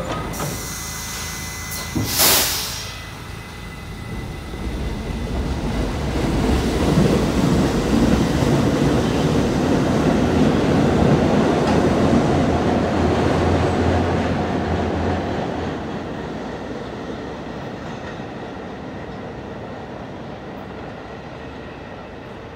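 New York City subway train on the Franklin Avenue Shuttle pulling out of the station. A short hiss of air about two seconds in, then the rumble of motors and wheels builds, is loudest midway and fades as the train moves off.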